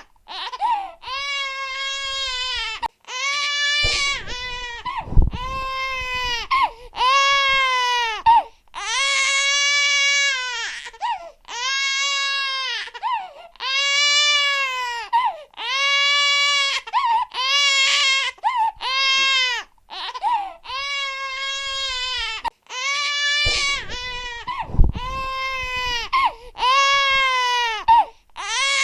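Infant crying hard: a steady run of wails, each about a second long and arching up then down in pitch, with quick breaks for breath between. A low bump sounds twice, about five seconds in and again a few seconds before the end.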